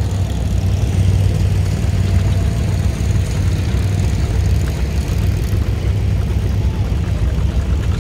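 Vintage farm tractor engines running at low speed in a slow procession, a steady low rumble.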